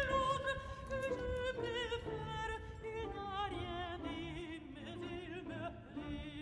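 Music: an operatic voice singing held notes with a wide vibrato.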